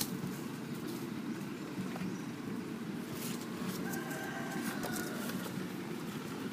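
Outdoor background with a steady low rumble, scattered light clicks and scuffles, and a faint drawn-out pitched call, likely a bird, about four seconds in that lasts under a second.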